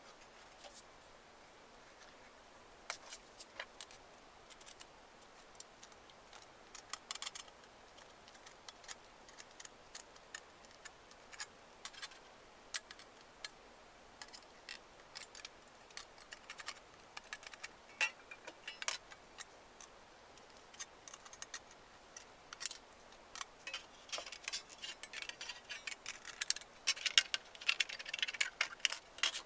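Scattered, irregular clicks and clinks of small tools and parts being handled on a workbench. They come thicker and louder near the end, together with a brief scraping rasp.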